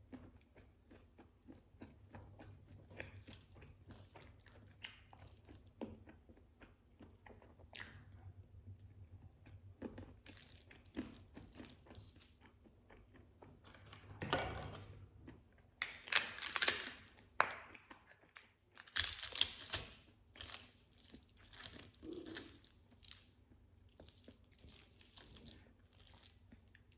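Close-miked eating: wet chewing and mouth clicks, broken by louder bouts of crunching a little past halfway.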